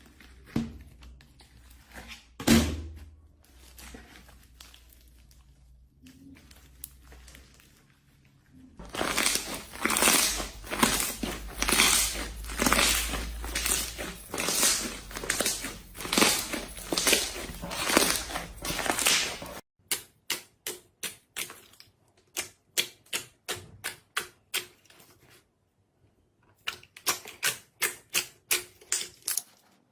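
Rapid tapping or clicking: a long dense run of quick taps, then single taps about two a second, then a faster run of taps near the end.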